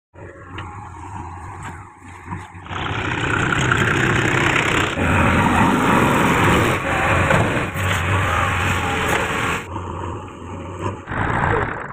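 JCB 3DX backhoe loader's diesel engine running under load, a steady low drone with a rough, noisy top. It gets louder and fuller about three seconds in and changes abruptly again near the end.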